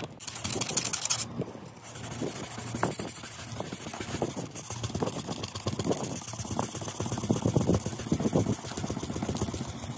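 Wet sanding car paint by hand with 400-grit sandpaper: quick back-and-forth rubbing strokes, about two a second, smoothing the rough edges of chipped, flaking paint.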